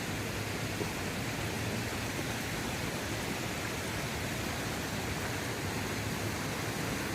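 Waterfall rushing steadily, an even roar of falling water with no breaks.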